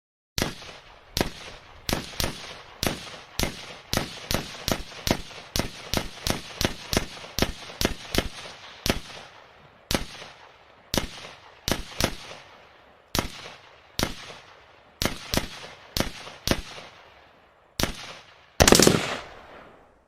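Pistol gunshot sound effects: a long string of single sharp shots, each with a short fading tail. They come quickly, about three a second, in the middle, then further apart, with one longer, louder blast near the end.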